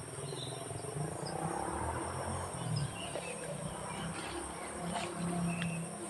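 Steady high-pitched insect chorus with a few short bird chirps over it, and irregular low rustling and bumping from footsteps through undergrowth as the phone is carried.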